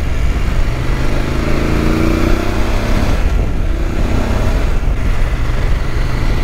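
Motorcycle engine running while riding, with heavy wind noise over the microphone. The engine note rises and falls a couple of times with the throttle.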